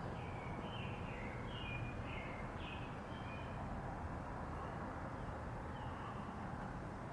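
A bird calls a quick series of short calls over the first few seconds and once more near the end, over a steady outdoor rush of wind and ambient noise ahead of a thunderstorm.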